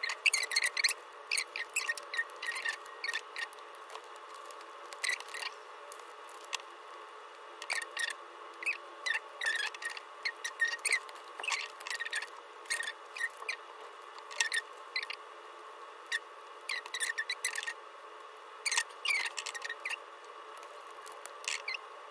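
Holographic plastic sticker sheets being handled and peeled: irregular crisp crinkles and clicks, some quick runs of several at once, over a faint steady hum.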